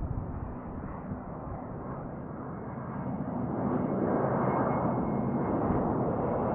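Airplane engine noise: a steady rushing that swells louder about three and a half seconds in, with a faint high whine.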